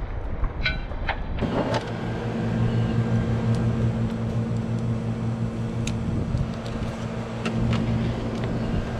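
A machine running with a steady low hum that starts about a second and a half in, with a few light clicks on top.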